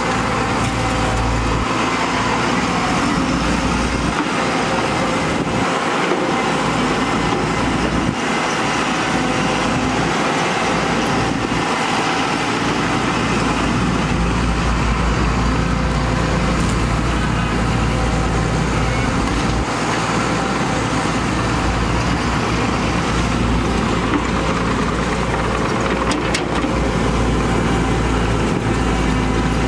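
Diesel engine of a Samsung wheeled excavator running steadily while it loads dirt into a dump truck, its low rumble strengthening and easing as the machine dumps, swings and digs.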